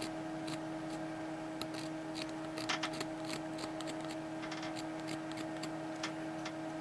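Hand-held engraving scraper shaving the metal of a coin as a design is carved, heard as a run of small, irregular scratchy ticks over a steady hum.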